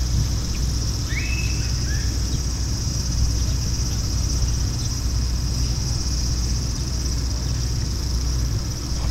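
Summer cicadas droning steadily in a high, even band over a constant low rumble, with a couple of short chirps about a second in.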